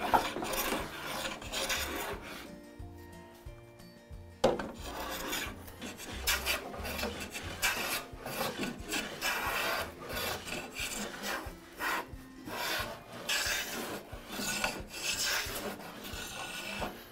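Long hand plane taking shavings along the edge of a red oak board: repeated rasping strokes, one after another, with a short pause about two seconds in.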